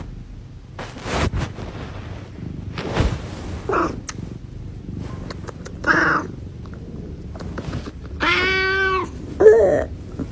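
Orange tabby cat meowing while being held and kissed. There is a brief cry about six seconds in, then a long meow held at a steady pitch near the end, and right after it a short, loud one.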